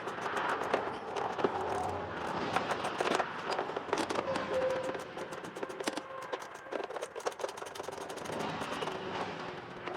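Hand tools clicking and clattering on metal while the engine's cover is unbolted with a 5/16 socket: a busy, irregular run of sharp clicks, thickest at the start and near the end.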